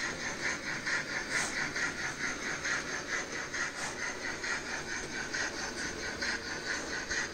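OO gauge model train running through the layout's station, making a rapid, even beat of about four or five strokes a second over a steady hiss.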